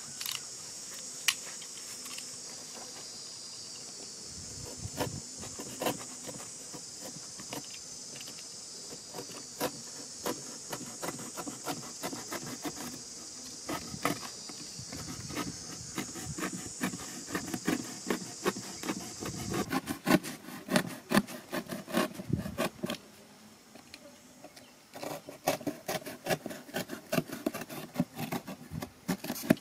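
Insects buzz steadily at a high pitch and cut off about two-thirds of the way in. Underneath are scratches, clicks and scrapes of a small blade being pushed and worked into a cardboard box, growing louder and busier in the last third.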